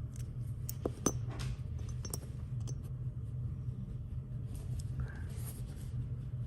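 Small magnets and parts of a fidget slider clicking and clinking as they are fitted together by hand, a handful of light clicks in the first three seconds, over a steady low hum.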